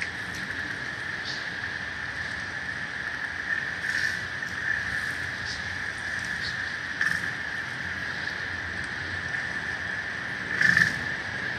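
Harbour water lapping against a floating pier, picked up partly by an underwater hydrophone. It is a steady hiss with faint scattered ticks, and a brief louder slap or splash about every three seconds; the loudest comes near the end.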